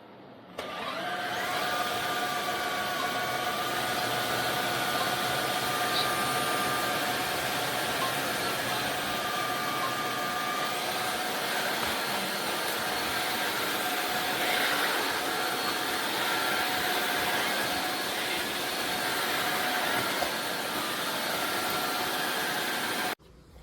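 Tineco Floor ONE S7 Pro cordless wet-dry floor cleaner running, a steady motor and suction whine that starts suddenly about half a second in and cuts off suddenly near the end.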